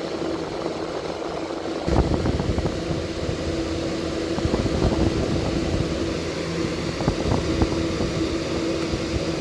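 Air conditioner unit running, its fan blowing out hot exhaust air: a steady hum with a rumble of moving air on the microphone that grows stronger about two seconds in.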